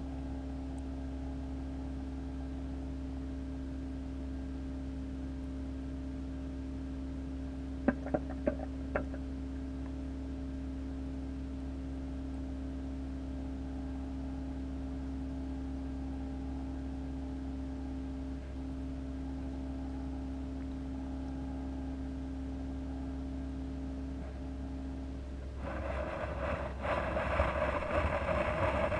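Steady low hum of reef aquarium equipment, with four sharp clicks about eight seconds in. For the last few seconds it is drowned by louder scraping and rustling.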